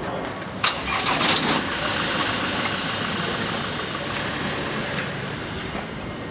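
Truck engine running, with a short hiss of air about a second in, then a steady rumble that slowly fades.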